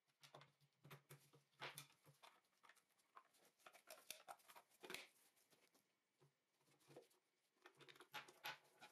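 Faint, irregular clicks, taps and rustling as the multimeter's plastic case parts are handled and fitted back together by gloved hands.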